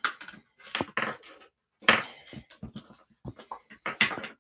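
Handling noise from unboxing: hands scraping and tapping on a plastic packaging tray and pulling the earbud case out of it, a run of irregular short rustles and knocks.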